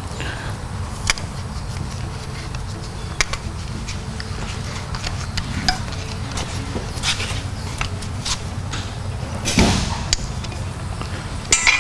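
Scattered metal clicks and ticks of an Allen key turning the bolts of a coolant-hose hold-down bracket on a Cummins 5.9L engine head, over a steady low hum. A louder thump comes near the end.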